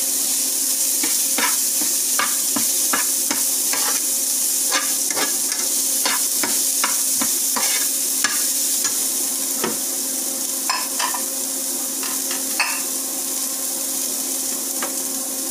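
Beetroot and chillies frying in oil with onion and garlic in a pan, a steady sizzle, while being stirred: a utensil scrapes and knocks against the pan in irregular strokes, about one or two a second.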